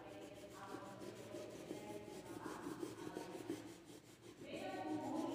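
A crayon rubbing on paper in repeated colouring strokes, with a voice-like pitched sound in the background that is loudest near the end.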